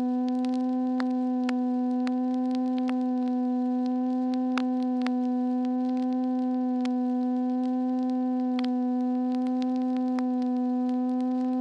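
A steady, unbroken buzzy tone, with irregular sharp clicks and pops scattered over it.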